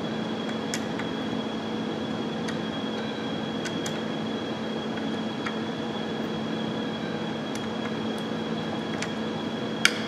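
Steady fan-like hum with a few faint, scattered clicks as a screwdriver snugs screws into the plastic shifter assembly; a sharper click comes near the end.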